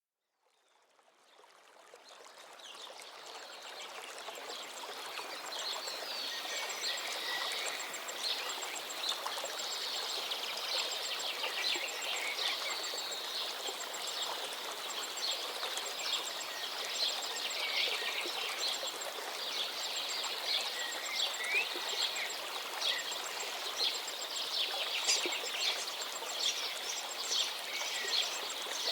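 A chorus of many small songbirds chirping and singing together, dense overlapping chirps and trills over a steady rushing background, fading in over the first few seconds.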